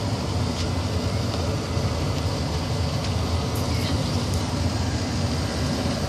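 1995 Tempstar SP80 gas furnace running steadily at full fire, its gas burners lit and its draft inducer fan and blower fan running, making an even, continuous machine noise.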